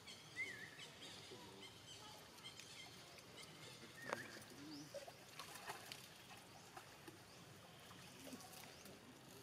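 Quiet outdoor ambience with a few faint, short high-pitched chirps and squeaks, including a sharp falling squeak about four seconds in.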